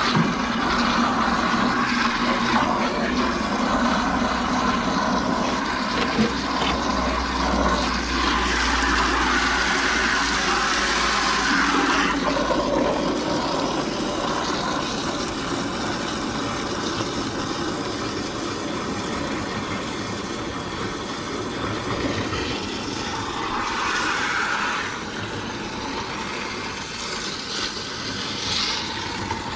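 Fresh water running steadily out of a tankless water heater's flush hose into a bucket, rinsing the vinegar descaler from the unit. The higher hiss of the flow drops noticeably about twelve seconds in.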